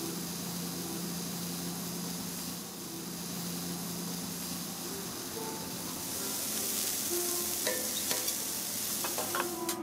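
Food sizzling on a teppanyaki iron griddle: a steady frying hiss that grows louder about six seconds in, with a few sharp clicks near the end.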